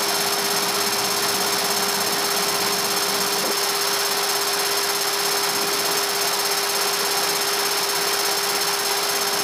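Steady in-flight cockpit noise of a jet early warning aircraft: an even rush of air and engine noise with a constant hum. It starts and stops abruptly.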